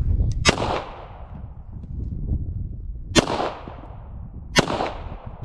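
Three pistol shots, about half a second in, about three seconds in and about four and a half seconds in, each followed by a short ringing tail.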